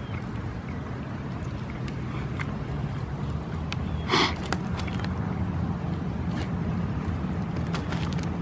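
Steady low rumble of a running engine, with one short, sharp, loud sound about four seconds in.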